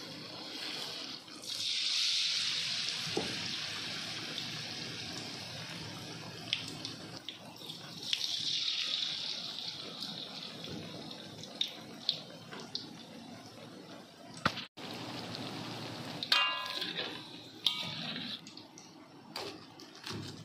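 Battered bread pieces deep-frying in hot oil in a wok: a steady sizzle that swells about a second in and again around eight seconds, with light clicks of metal tongs against the wok. Near the end there is a short metallic clatter of kitchen utensils.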